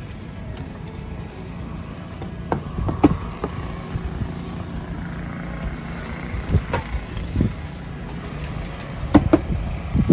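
Low rumbling wind buffeting the microphone in a snowstorm, with a few scattered soft knocks.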